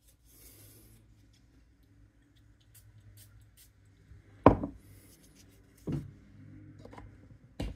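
Cologne atomizer sprayed onto paper tester strips in short hisses, with paper handling rustles. A sharp loud knock comes about four and a half seconds in and a smaller one about six seconds in.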